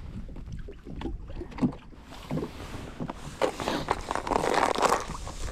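Wind buffeting the microphone with a steady low rumble, with scattered light knocks and a rougher gusting hiss that builds over the last few seconds.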